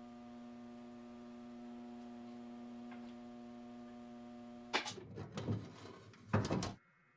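Motor of an electric bead roller running with a steady hum while an aluminum panel is fed through. It stops suddenly a little before five seconds in, and a burst of aluminum sheet knocking and rattling follows as the panel is handled, ending abruptly.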